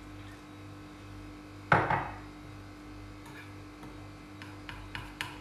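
A single sharp knock on the counter about two seconds in, then light spoon clicks and scrapes in a bowl as gram-flour batter is stirred, over a steady low hum.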